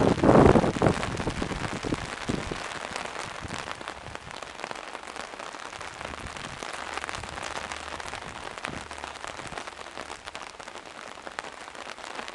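Rain mixed with hail: a steady hiss of falling rain dotted with many sharp ticks of drops and hailstones striking hard surfaces. A loud low rumble runs through the first second.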